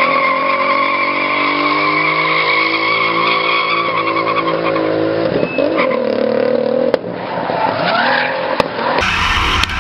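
BMW E36 drift car sliding in circles, its engine held at high revs while the rear tyres squeal steadily; the engine note drops about halfway through. Near the end the engine sound turns deeper and closer.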